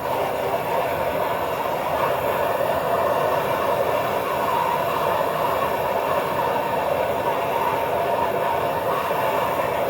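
Gas torch flame burning with a steady rushing noise while it heats a stuck cylinder-head bolt.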